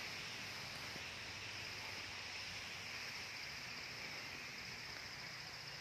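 Steady outdoor chorus of insects, a constant high buzzing hum in two pitch bands, over a faint low rumble.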